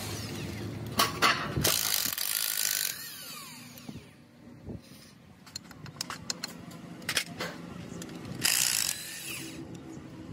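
Workshop tool noise during a diesel engine repair: scattered sharp metal clicks and knocks, with a loud burst of hiss about two seconds in and another near the end.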